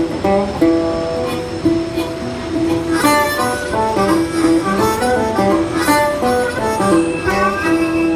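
Background music: a tune with harmonica over guitar.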